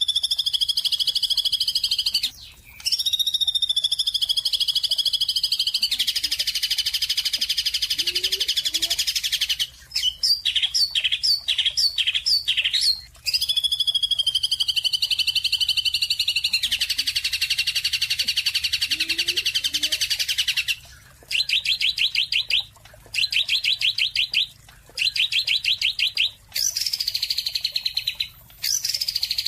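Songbird singing loud, high-pitched phrases with short pauses between them: long sliding warbles, steady buzzy trills, a quick run of separate chirps, and shorter rapid-pulsed phrases repeating near the end.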